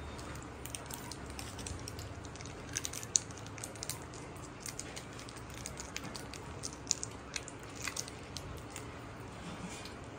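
Quiet eating sounds: fingers working biryani rice against a steel plate and chewing, heard as scattered soft ticks and clicks over a faint low room hum.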